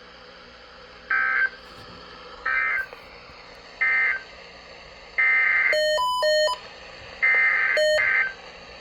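Emergency Alert System SAME digital data bursts, a harsh buzzy warble. Three short bursts about 1.3 s apart are the end-of-message code closing the tornado warning. Then two longer bursts begin the header of the next alert, with a few short high beeps over them near the middle.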